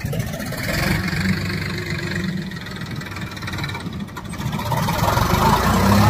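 Sonalika tractor's diesel engine running under load as it pulls a trolley heaped with sand, growing louder about five seconds in as it comes closer.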